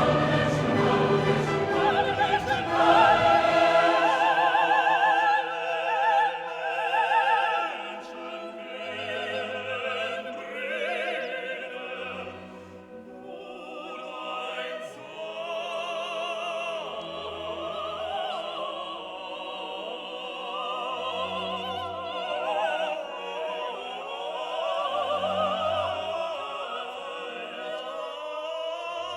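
Background classical music: operatic singing with strong vibrato over an orchestra, fuller and louder in the first few seconds, then softer.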